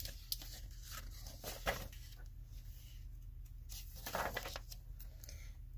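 Pages of a picture book being opened and turned by hand: soft paper rustles and a few light taps, the sharpest about a second and a half in, over a low steady hum.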